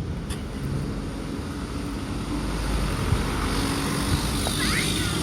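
Road traffic: a motor vehicle's engine and tyre noise growing gradually louder as it approaches.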